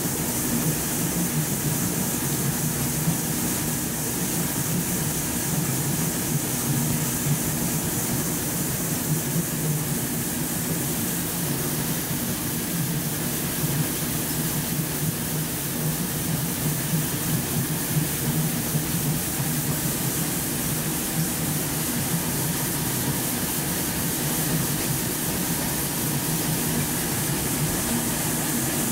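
Running machinery of a polypropylene staple fibre production line: a steady, loud industrial hum with several low tones under a continuous hiss.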